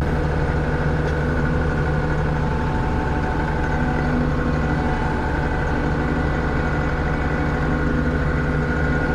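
John Deere 6620 combine running at low revs, heard from inside the cab as a steady, even engine and machinery hum that is quiet for a combine. The main drive shaft's bad bearing, which had caused excess noise in the cab, has just been replaced.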